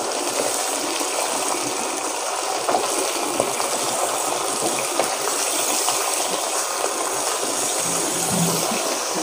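Raw mutton pieces sizzling steadily in hot mustard oil in a kadhai over a high flame, stirred with a wooden spatula.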